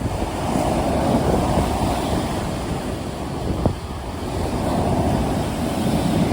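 Sea waves surging and washing in with wind, a steady rush of noise that swells about a second in and again near the end. A single sharp click sounds a little past the middle.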